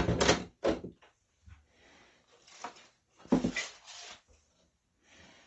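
Hard plastic CGC slabs being handled and set down: a few light knocks and clicks, with a louder handling noise a little past the middle.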